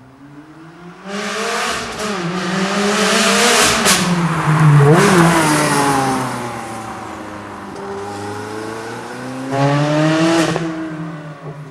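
Ferrari 360 Challenge Stradale's flat-plane V8 revving hard, the engine pitch climbing and dropping several times, with a sharp blip about five seconds in and one last rev near the end before it fades.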